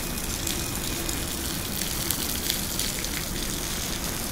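Steady hurricane rain with sharp spatters of drops and a low, gusty wind rumble.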